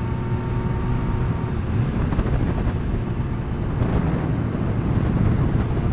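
Yamaha R6 sport bike's inline-four engine running at road speed, with wind rushing over the microphone in a steady drone.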